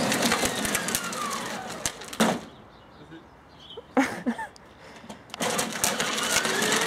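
Battery-powered ride-on toy jeep driving on asphalt: its small electric motors whine, sliding in pitch as it changes speed, over a clicking rattle from the hard plastic wheels. There is a quieter stretch of about a second and a half in the middle.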